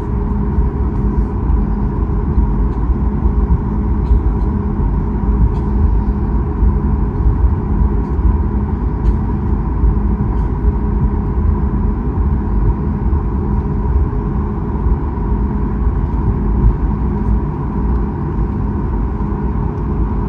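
Boeing 737 MAX 8 taxiing, heard from inside the cabin: a steady low rumble with the engines' even hum at several pitches, and a few faint ticks.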